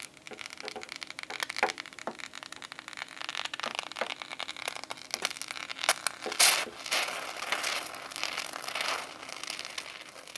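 Expanding spray foam sputtering out of an aerosol can's nozzle tube: a crackling hiss full of small pops, with the strongest spurts about six and a half seconds in.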